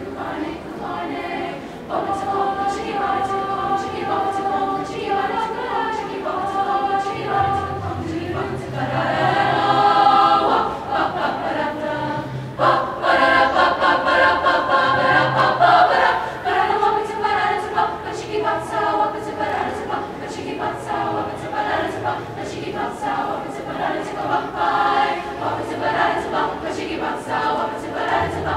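Women's choir singing a cappella in close harmony, many voices together; it swells loudest around ten seconds in and again for a few seconds after that.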